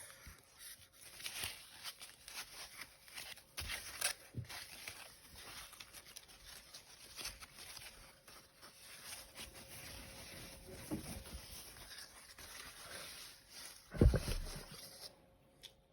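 Packaging being handled and unwrapped: light rustling, crinkling and small taps, with a louder thump about fourteen seconds in.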